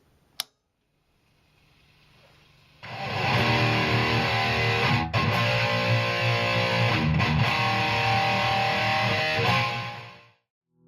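Distorted electric guitar played through a Hughes and Kettner Tubemeister 18 valve amp head: a heavy riff with sustained notes comes in about three seconds in and cuts off abruptly just before the end. A single sharp click comes near the start.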